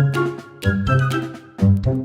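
Background music with a steady beat: a bouncy bass line and short pitched notes over regular percussive hits.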